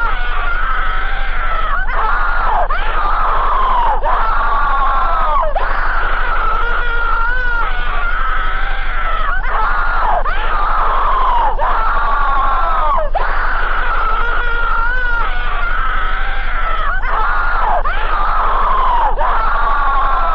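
Loud, distorted screaming that runs on without a break in level, cut into wails of about a second each, many ending in a falling slide, over a steady low hum.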